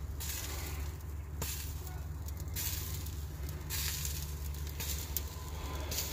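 Fat sizzling and hissing from a whole chicken cooking on the rotisserie of an open ugly drum smoker, over a steady low hum.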